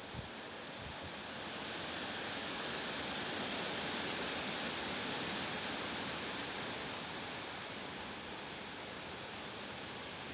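Wind blowing as a steady hiss, a gust building over a couple of seconds and then slowly easing.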